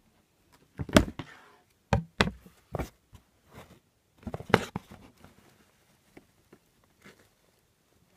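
Handling noise from old shoes being picked up and moved about: a few sharp knocks and clacks against a hard surface, the loudest about a second in and again around four and a half seconds, with light scuffing between.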